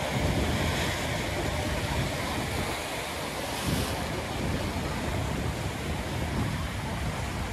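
Pacific surf breaking over shoreline rocks and washing in white foam: a steady rushing wash with a low rumble underneath.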